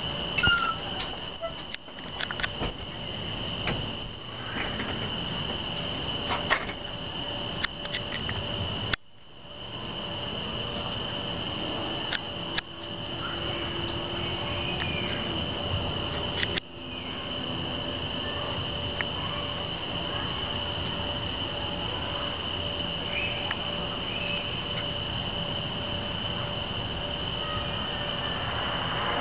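Night insects chorusing: a continuous high, even trill with a faster pulsing chirp above it. A few scattered clicks come early on, and the sound drops out abruptly twice, about nine and sixteen seconds in.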